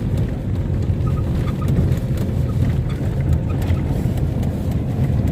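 VAZ-2110 driving over a rough, potholed dirt road: steady low rumble of the engine and tyres with jolts over bumps, and faint short creaks from the front suspension. The owner describes this as a metallic scraping on the driver's (left) side.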